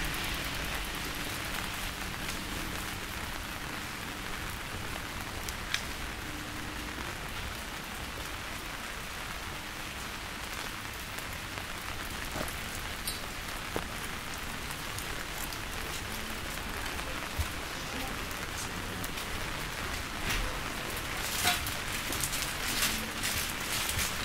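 Steady rain falling: an even hiss with scattered sharper drop hits, which come more often in the last few seconds.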